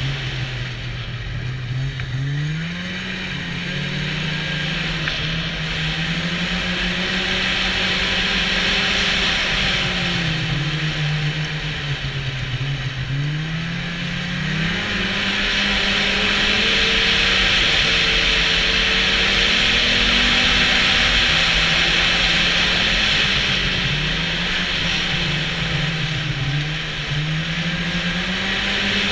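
Snowmobile engine running while riding, its pitch rising and falling several times as speed changes, over a steady rushing hiss that grows louder about halfway through.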